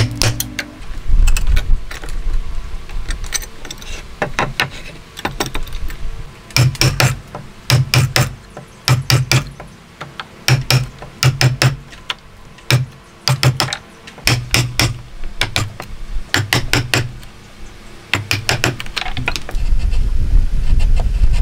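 Steel chisel being struck into a hardwood block, sharp wooden knocks coming in quick groups of two or three with a dull thud under each, as a recess for a joint is chopped out by hand. A low rumble rises near the end.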